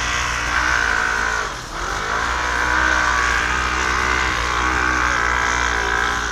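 Lada Niva's engine held at high revs while its chained wheels spin in snow, the car stuck and going nowhere. The revs sag briefly about a second and a half in, then climb back up.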